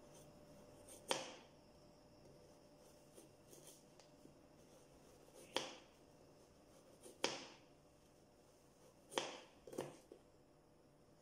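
A kitchen knife cutting a raw carrot on a plastic cutting board: five sharp chops at uneven intervals, with a few light taps between them. A faint steady hum runs underneath.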